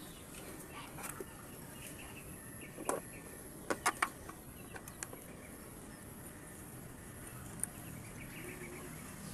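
Light clicks and knocks of a blender's plastic housing and parts being handled and fitted together, the sharpest pair about four seconds in. Birds chirp faintly in the background.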